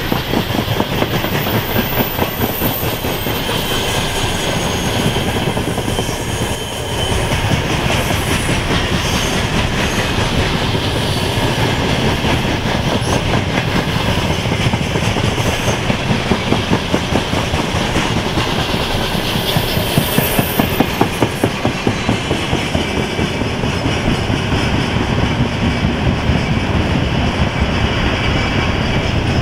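Passenger train rolling past, its coaches' wheels clattering over the rail joints in a steady, rhythmic clickety-clack.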